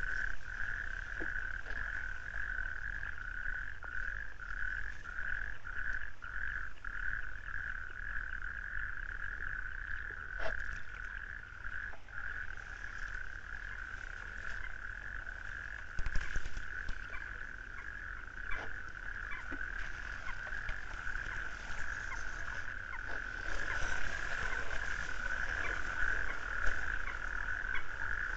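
A chorus of frogs calling in one continuous, steady trill, pulsing a little in the first few seconds, with a few faint clicks scattered through it.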